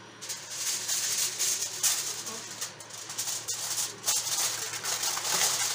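Aluminium foil crinkling and crackling as it is pressed and folded over a roasting tray to cover it for baking.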